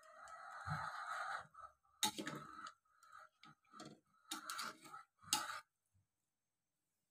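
Metal ladle stirring soup in a stainless steel pot: a scraping rasp against the pot for about a second and a half, then several separate clinks and knocks of the ladle on the pot. The sound cuts out about six seconds in.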